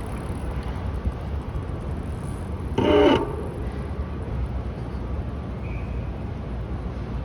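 Steady city traffic rumble, with one short car horn honk about three seconds in.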